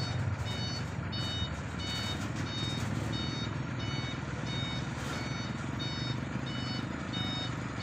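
Truck reversing alarm beeping repeatedly, roughly two beeps a second, over a large diesel truck engine running steadily.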